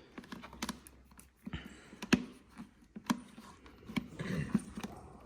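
Irregular sharp clicks and light knocks of hard parts being handled, with about three louder clacks and a short stretch of rustling near the end.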